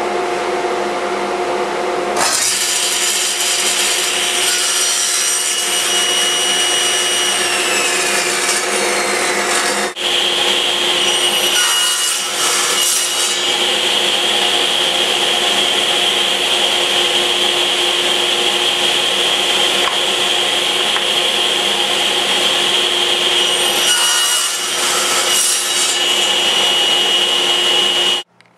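Table saw running with a steady whine, cutting wooden picture-frame molding on a miter sled. One high tone slides downward about a third of the way in, and the sound cuts off abruptly near the end.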